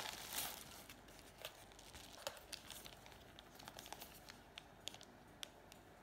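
Packaging crinkling as a brown mailer pouch is opened and a clear plastic bag of stickers is handled: a louder rustle in the first half-second, then scattered faint crackles.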